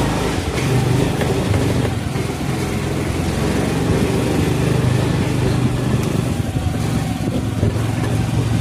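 Honda Activa scooter's single-cylinder four-stroke engine running steadily as the scooter is ridden.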